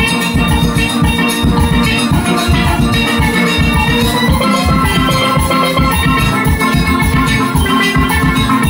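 A single pan steel band playing: many steelpans ring out together over a driving drum beat.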